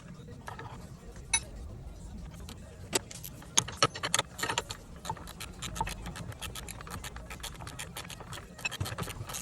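Irregular metallic clicks and clinks of tools and metal parts being handled and set down, one ringing briefly about a second and a half in, over a steady low hum.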